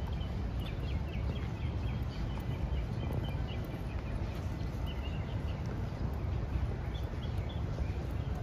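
Small birds chirping in short, quick notes in the trees, heard over a steady low rumble.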